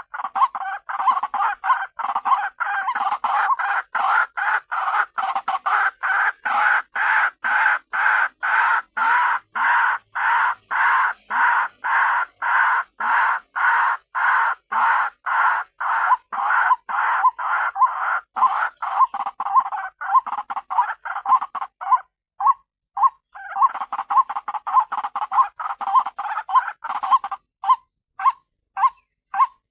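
White-breasted waterhen (ruak-ruak) calling: a loud, monotonous croaking call repeated about twice a second. After a short break about three quarters of the way through, it comes back as shorter, more spaced-out notes. This is a female's call, used as a trapping lure.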